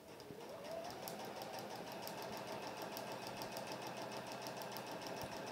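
Domestic sewing machine stitching a very short straight stitch through fabric and foundation paper. Its motor whine rises as it gets up to speed in the first second, then runs steadily with a rapid, even ticking of the needle strokes.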